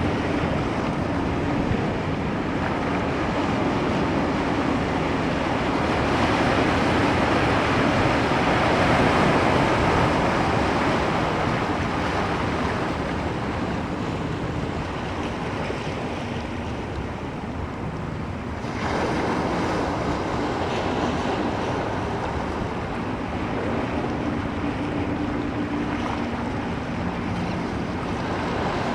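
Ocean surf: waves breaking and washing in a continuous rushing hiss that swells and eases. The hiss drops abruptly about two-thirds of the way through, then builds again.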